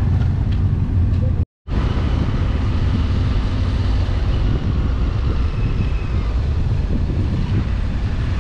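Motorcycle riding along with its engine running, heard as a dense, steady rumble mixed with wind on the onboard camera's microphone. The sound cuts out completely for a moment about a second and a half in.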